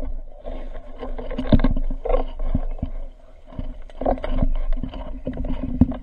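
Muffled underwater sound from a submerged camera: water movement and low rumble with irregular short knocks and a faint steady hum.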